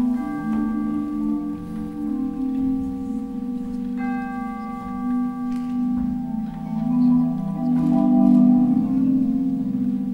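Percussion ensemble playing a slow passage on mallet keyboards: held, rolled low chords with bell-like tones ringing above them, and a new chord struck about four seconds in.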